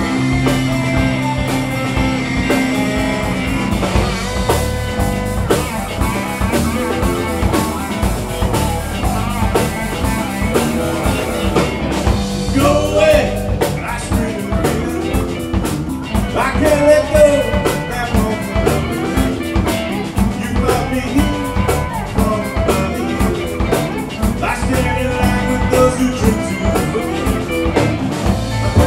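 Live alt-country rock band playing an instrumental break between verses, with guitars over bass guitar and a drum kit keeping a steady beat.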